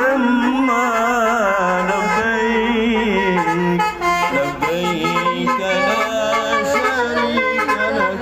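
A melody in a Middle Eastern style, carried on several wavering pitched tones at once, with a brief dip in level about four seconds in.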